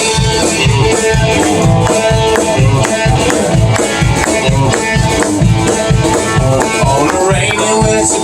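Country band playing an instrumental passage with a steady bass beat of a little over two beats a second.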